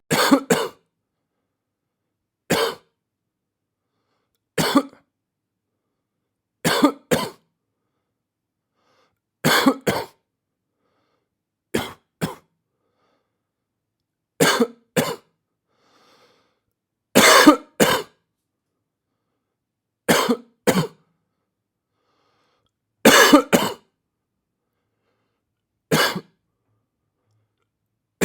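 A person coughing in short bouts of one to three coughs, about eleven bouts spaced two to three seconds apart, with silence between them.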